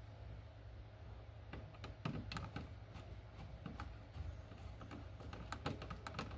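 Faint scattered clicks and small scrapes of hand tools working copper wire onto a wall receptacle's screw terminal, as the wire loop is closed around the screw and the screw is tightened down.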